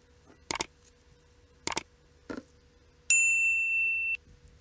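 Sound effects of a subscribe-button animation: three short sharp clicks, then a bright bell ding about three seconds in that rings for about a second and cuts off abruptly.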